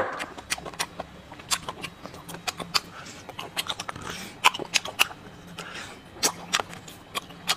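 Wet mouth sounds of a person sucking marrow out of a cut bone section: many sharp lip smacks and clicks, with a longer slurp about four seconds in.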